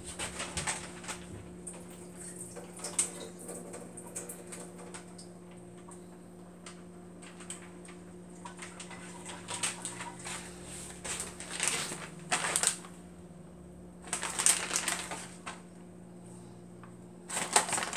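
Shrimp sizzling in a wok over turned-up heat, with scattered crackles and pops as the water from the shrimp cooks off. Near the end a plastic bag crinkles.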